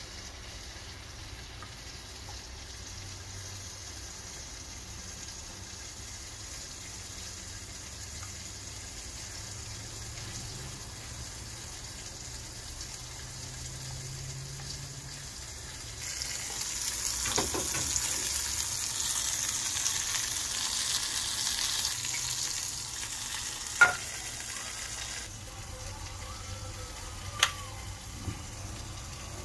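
Breaded shrimp frying in hot olive oil: a steady sizzle that grows much louder about halfway through for several seconds, then eases off. Two sharp knocks come near the end.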